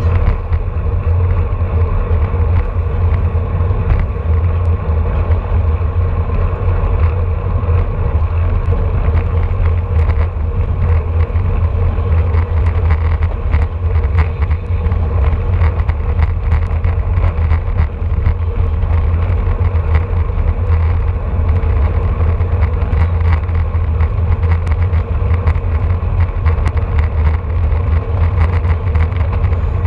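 Steady low rumble of wind on the microphone of a handlebar-mounted camera on a road bike riding at about 23 to 27 mph, mixed with tyre and road noise.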